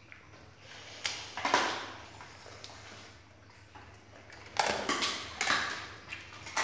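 A dog chewing and crunching pieces of boiled chicken, with a few sharp, wet crunches about a second in and a cluster of them near the middle to the end.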